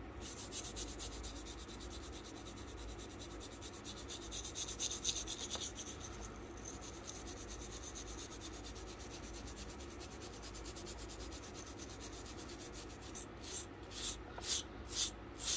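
Very soft brass wire brush scrubbing grime out of the checkering on a pistol's wooden butt: a fast, even scrubbing, loudest in the first half. Near the end it gives way to five slower, separate strokes.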